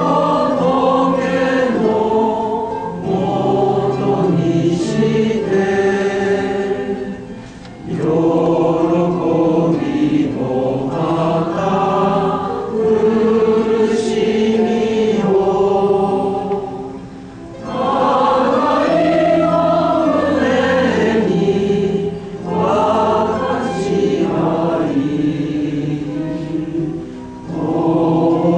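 A congregation singing a Buddhist hymn together in unison, in long sung phrases with short breaks between them.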